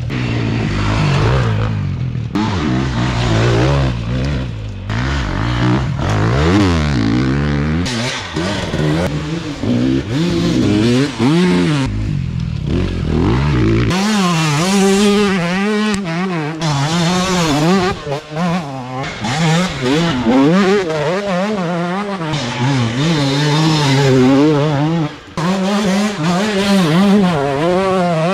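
Enduro motorcycles racing along dirt trails, engines revving up and down hard as the riders work the throttle and shift gears. The engine pitch rises and falls again and again, and the sound changes abruptly twice as one bike gives way to another.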